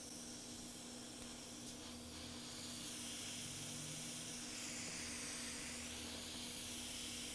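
Hot air rework station blowing through a narrow nozzle onto a surface-mount component to desolder it: a soft, steady hiss of airflow that grows a little louder about two to three seconds in, over a faint steady low hum.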